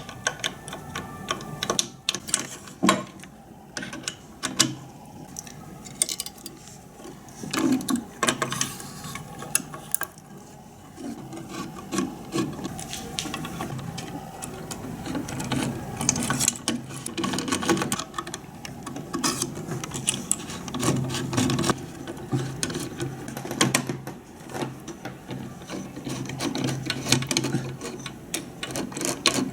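Irregular mechanical clicking and rattling with some rubbing, from a small mechanism being worked.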